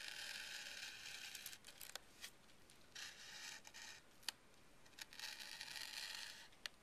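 Single-edge razor blade slicing tissue paper along a balsa wood wing frame, trimming off the excess covering: three faint cutting strokes with a few sharp clicks between them.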